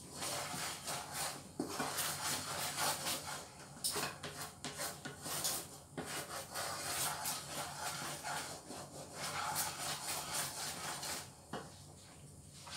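Wooden spatula stirring and scraping a thick, simmering brown sugar and coconut milk mixture around a non-stick frying pan, in repeated strokes that stop near the end.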